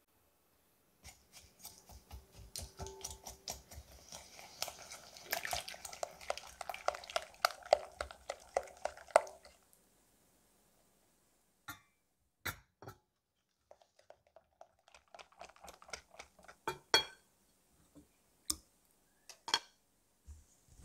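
Silicone-coated balloon whisk beating eggs and sugar in a glass bowl: rapid, dense clicking and tapping of the wires against the glass for about eight seconds. After a pause with a few separate taps, lighter, sparser whisking follows.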